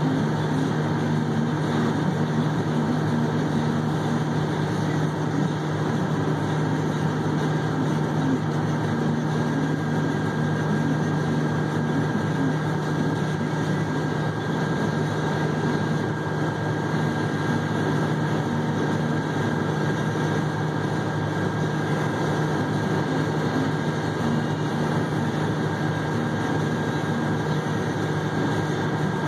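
Haul truck's diesel engine idling steadily, heard from inside the cab, with a faint steady whine above the low hum.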